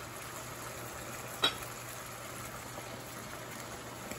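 Shrimp scampi broth of white wine and lemon juice simmering steadily in a frying pan on high heat, with one sharp click about a second and a half in.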